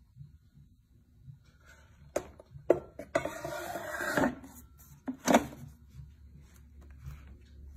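Frying basket of a Copper Chef 2-quart air fryer being slid into the unit: a couple of clicks, a scraping slide of about a second, then knocks as the drawer seats shut.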